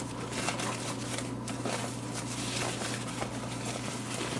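Rustling and crinkling of a soft white protective wrap as it is pulled off a compact digital camera, a rapid run of small ticks and scrapes, over a steady low electrical hum.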